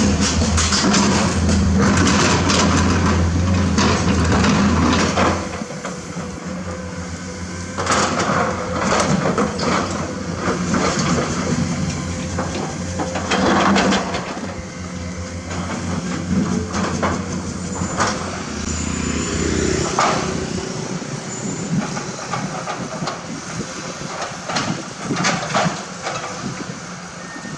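Komatsu hydraulic excavator's diesel engine working under load, its level rising and falling as it digs, with the bucket scraping and knocking against limestone and rock clattering.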